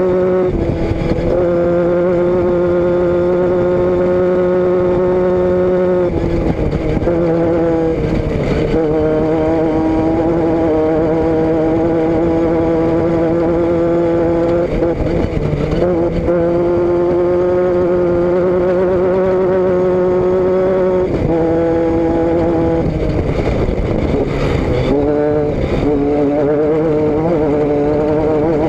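Vehicle engine and exhaust running steadily under way, heard from a camera mounted at the rear. Its note holds level, then dips and picks up again several times, as with gear changes or throttle lifts.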